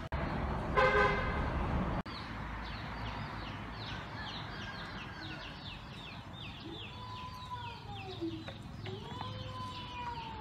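Outdoor yard ambience: a short horn-like toot about a second in, then small birds chirping rapidly and continuously, with lower rising-and-falling calls near the end.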